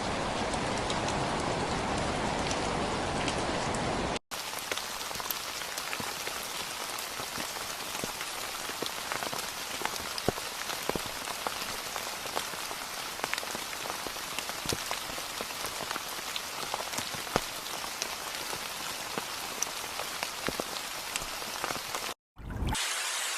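Rain falling steadily, fuller and heavier at first. About four seconds in it cuts abruptly to lighter rain, with many individual drop hits standing out as sharp ticks. Near the end there is a brief dropout and a short low thud, then it switches to a thinner, hissing rain.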